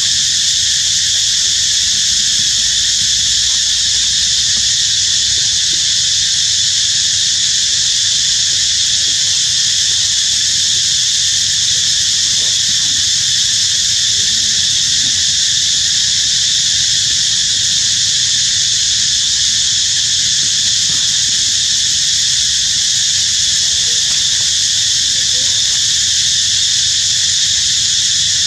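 Steady, high-pitched insect chorus, unbroken and unchanging throughout.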